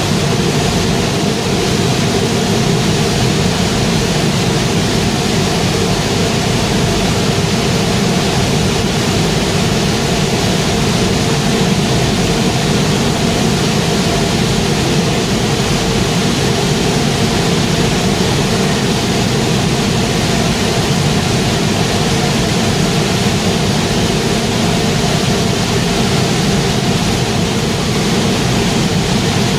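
Waste-tire rubber powder production line running: a loud, steady machinery drone with a few constant hum tones and an even noise over it, unchanging throughout.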